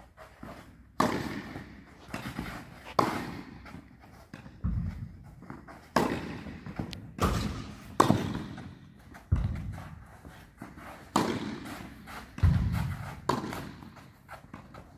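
Tennis rally on an indoor clay court: rackets striking the ball and the ball bouncing, about ten sharp hits at a steady pace of one every second or two, each echoing in the hall.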